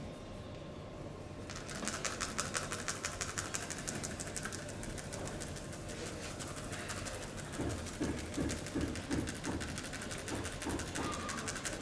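Rapid, even rhythmic tapping of a percussive massage, starting about a second and a half in, with heavier thumping strokes in the second half.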